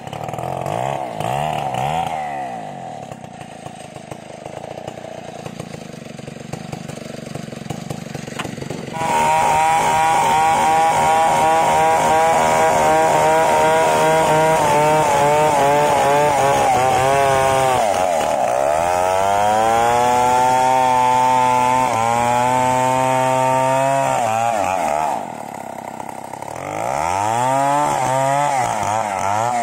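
Large two-stroke chainsaw of the Stihl 070 type ripping lengthwise through a hardwood board. It runs at low revs for the first third, then the throttle opens suddenly and it holds high revs in the cut, its pitch sagging a couple of times under load. Near the end it drops off briefly and revs up again.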